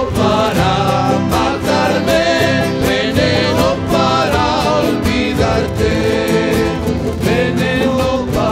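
Live acoustic folk band: several voices singing together over strummed acoustic guitars, with a steady strummed beat.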